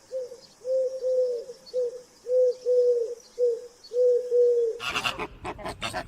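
A dove cooing, a soft three-note phrase repeated about every second and a half. Near the end it cuts abruptly to louder, harsher animal calls.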